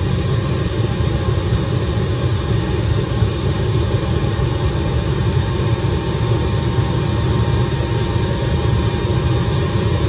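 maXpeedingrods 12 V 8 kW diesel air heater running, its blower pushing air out through a round outlet vent: a steady low rumble and rush of air with a faint hum.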